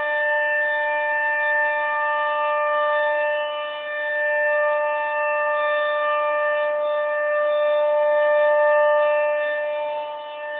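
Outdoor tornado warning siren sounding a test, holding a steady high wail. Its loudness swells and dips, dropping briefly about four seconds in and again near the end.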